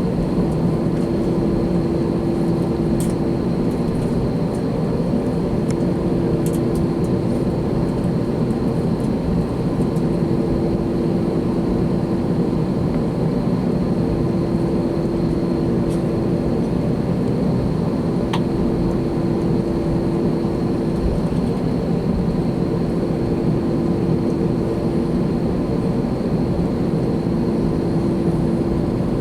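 Airbus A321's CFM56 jet engines running steadily, heard inside the cabin as an even roar with a steady low hum.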